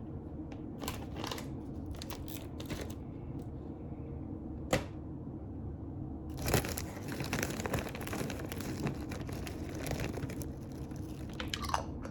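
Crinkling and rustling from handling while tacos are assembled, with a few sharp clicks in the first half and a longer, denser stretch of crinkling in the second half.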